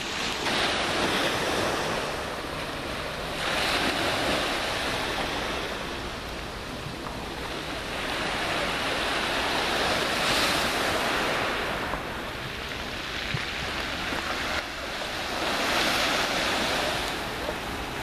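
Small sea waves breaking and washing over a pebble beach, swelling in surges every few seconds.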